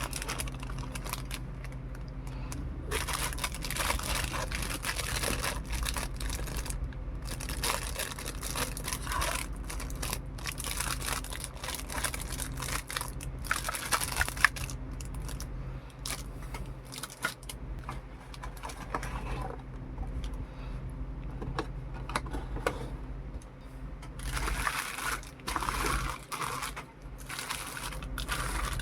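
Packaging and small parts being handled: plastic crinkling and rustling with scrapes and light clicks, coming in irregular spells over a steady low hum.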